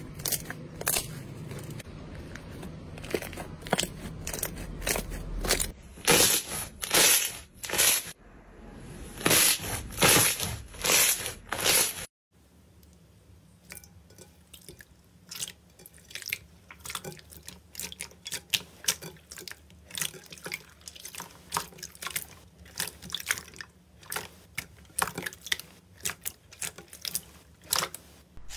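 Slime being pressed and squished by hand, giving sticky popping and crackling clicks. After a sudden cut about twelve seconds in, clear blue slime pressed in a glass bowl gives quieter, quicker small pops.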